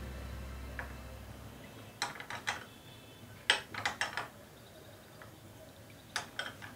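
A steel spoon clinking and scraping against a small glass bowl while cornflour is stirred into milk, in short clusters of taps: about two seconds in, again around three and a half to four seconds, and near the end.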